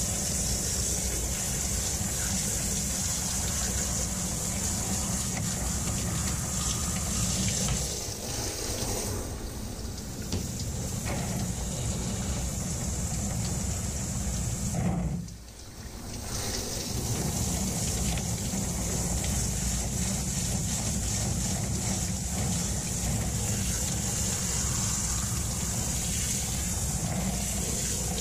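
Handheld shower head spraying steadily onto a person wearing a fur jacket. The water drops off for a couple of seconds about 8 seconds in, nearly cuts out briefly about 15 seconds in, then comes back at full flow.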